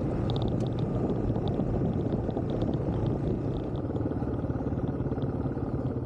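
Dual-sport motorcycle engine running steadily while riding a gravel back road, with wind and road noise and scattered small ticks.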